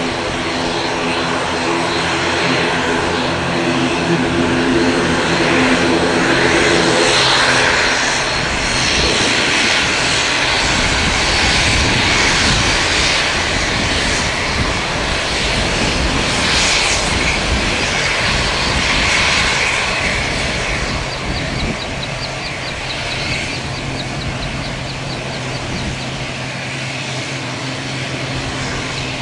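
ATR 72-600 twin-turboprop airliner's engines and propellers running as it moves along the runway. A steady propeller hum in the first several seconds gives way to a louder rushing sound about seven seconds in, which eases off in the last third.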